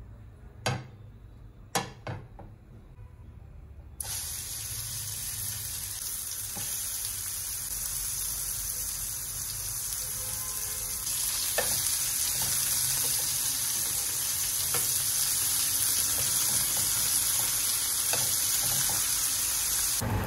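Chicken kebab patties shallow-frying in oil on a flat tawa, a steady sizzle that starts suddenly about four seconds in and gets louder partway through. A few sharp clicks come before it.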